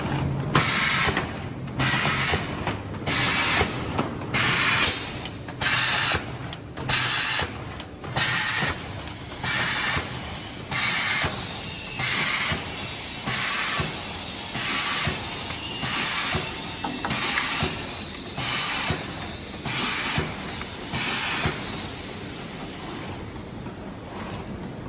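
Automatic carton packing machine running, with short sharp hisses of air in a steady rhythm of a little over one a second over a low mechanical clatter. The hissing stops about 22 seconds in.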